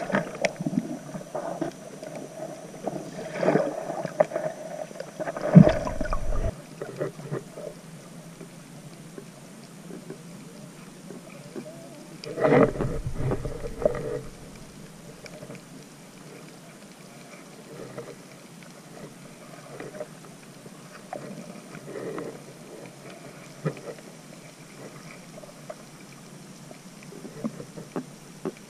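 Muffled underwater sound picked up by an action camera held below the surface: water moving and gurgling, with scattered knocks and a few louder rushing bursts, the biggest about twelve to fourteen seconds in.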